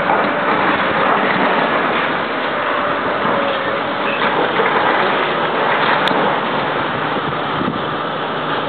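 Heavy demolition machinery, a wheel loader and an excavator, running steadily while clearing rubble, with scattered clanks and clatter.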